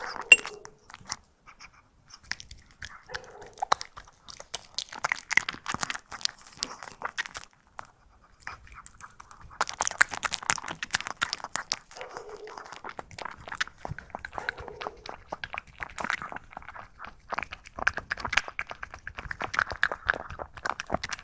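A puppy eating a dish of salmon tartare: many short, irregular chewing and biting sounds, with brief pauses about a second in and again around eight seconds.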